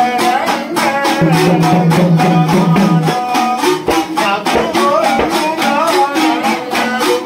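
A man sings a devotional folk song over small laced hourglass drums beaten in a steady rhythm, about three beats a second. Near the start the voice holds one low note for about two seconds.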